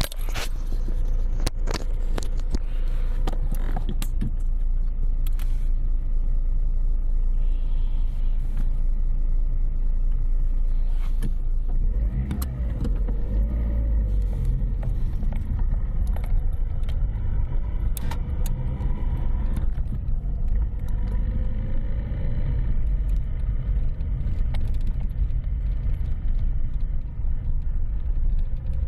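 Lada Priora being driven over a rough road to test for a knock over small potholes, just after its steering rack was rebuilt: steady engine and road rumble with scattered clicks and knocks, most of them in the first few seconds.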